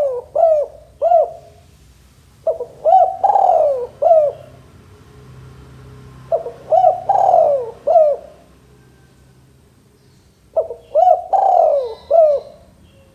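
Male spotted dove cooing: the end of one phrase, then three more, each a quick run of short coos with one longer, louder note falling in pitch. The phrases come about every four seconds.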